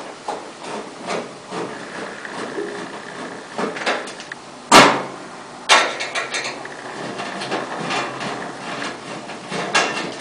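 Phillips screwdriver backing screws out of a pellet stove's sheet-metal side panel: small scraping and clicking, with a sharp knock a little before the middle and a lighter one about a second later.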